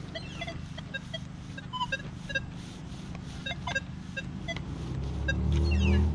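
Nokta Legend metal detector giving many short, scattered beeps at different pitches as its 6-inch coil sweeps over ground full of junk targets. Under them a passing vehicle's low rumble swells near the end and is the loudest sound.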